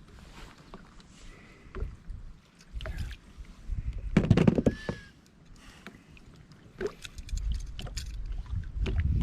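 Scattered clicks and knocks of handling in a fishing boat while the hooks are worked out of a landed musky, with a louder thumping burst about four seconds in.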